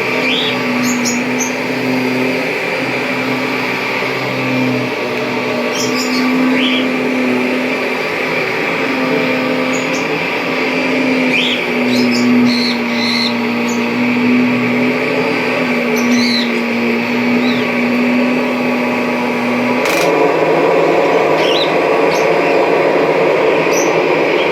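Kirby G5 upright vacuum cleaner running steadily with a slightly wavering hum and scattered faint ticks and crackles. About twenty seconds in the hum's tone drops out and the sound turns a little louder and rougher.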